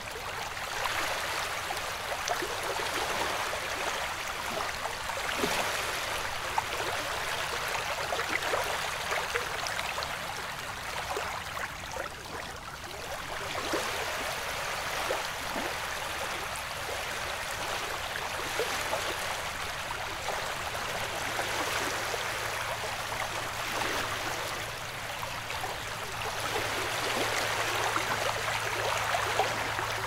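Small waves lapping on a beach, the wash swelling and fading every few seconds. A faint steady low hum comes in about two-thirds of the way through.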